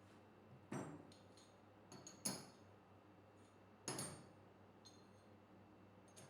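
Metal pieces clinking and knocking together on a bench: four sharp knocks with a brief high metallic ring, among a few lighter clicks, over a faint steady hum.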